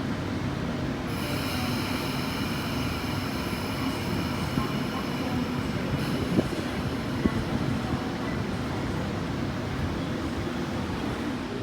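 Sydney electric suburban train moving through the station with a steady rumble. A high, multi-tone squeal starts about a second in and stops about six seconds in. A few sharp clacks follow in the middle.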